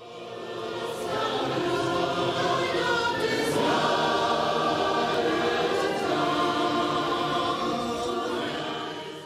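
Intro music with choral singing, fading in at the start and fading out near the end.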